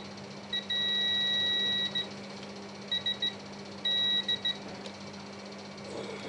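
Electronic beeper sounding on one high pitch: groups of short beeps with two longer held beeps among them, over a steady low hum.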